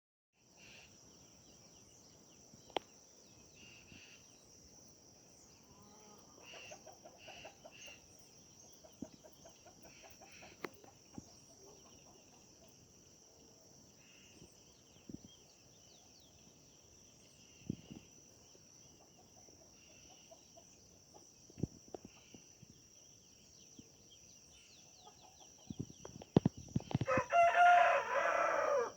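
A rooster crowing loudly for about two seconds near the end, over a steady high insect trill and small bird chirps, with a few scattered clicks.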